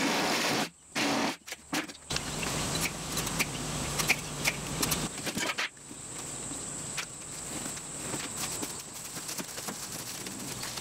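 Cordless drill-driver running in short bursts, then one longer run, as screws are backed out of a wooden shipping crate, with wooden boards knocking. Later come irregular clatter and rustling of ratchet-strap webbing and plastic wrap being handled.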